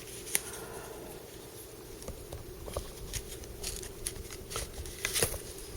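Light clicks and rubbing as a pocket knife and its case are handled, over a steady low hum.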